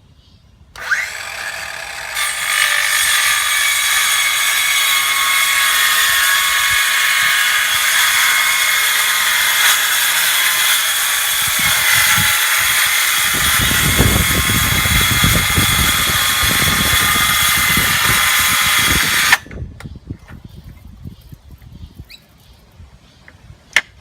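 Handheld power saw starting up about a second in and running at full speed, cutting a softwood timber board with a shallow blade depth; a heavier low rumble joins partway through, and the saw cuts off suddenly near the end.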